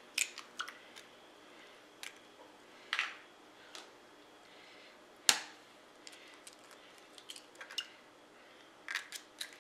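Eggs being cracked by hand into a glass jar: a scattering of short, sharp taps and shell crackles, with one loud crack about five seconds in and a quick run of small clicks near the end.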